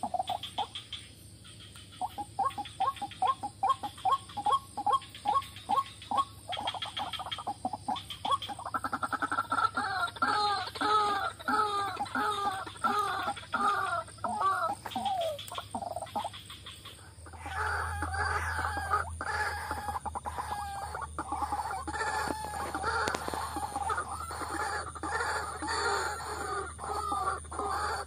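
White-breasted waterhen (ruak-ruak) calls used as a lure: long series of quick, repeated croaking notes, several a second. About two-thirds of the way through, the calling grows louder and denser, with a low hum under it.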